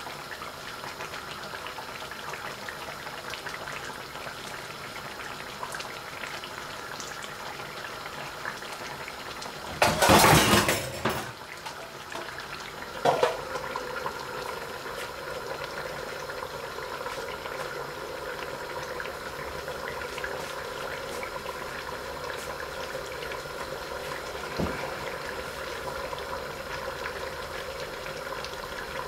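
Curry simmering and bubbling in an iron karahi over a gas burner. About ten seconds in, a steel lid is set on the pan with a loud metallic clatter, followed by a sharper clink a few seconds later. The simmering then carries on under the lid.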